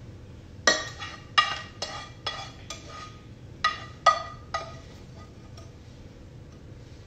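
A utensil knocking against a frying pan about a dozen times in two quick runs, each knock sharp with a short metallic ring from the pan.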